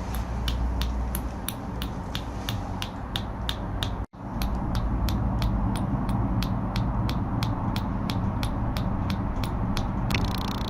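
Water drops falling onto tofu in a steady drip, about three sharp ticks a second, over a low steady hum. The drip stops for an instant about four seconds in, then carries on at the same rate.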